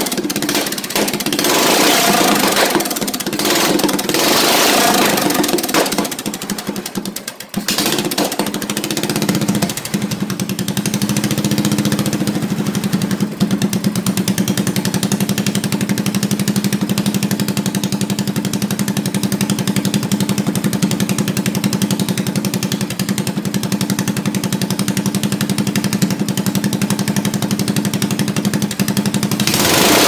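Motovox mini bike's single-cylinder engine, fed by a 32 mm Mikuni carburetor and exhausting through an open straight pipe, running on the bench. It surges up and down for the first six seconds, drops off sharply about seven seconds in, then picks back up and settles into a steady idle.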